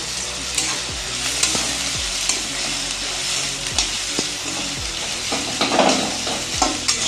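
Chopped onions sizzling in hot oil in a metal kadai, stirred with a spatula that scrapes against the pan in frequent short strokes.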